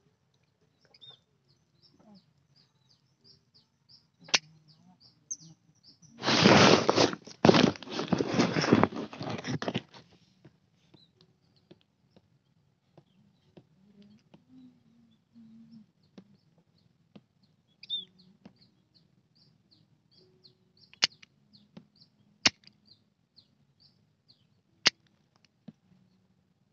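Small birds chirping in short repeated high calls, with a few sharp clicks from a hand-held key-cutting tool. About six seconds in comes a loud noisy rush lasting about four seconds.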